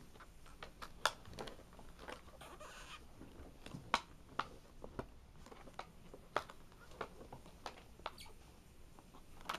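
Scattered small clicks and scratches of an action figure's plastic packaging being handled and its twist ties undone, the sharpest clicks about one and four seconds in.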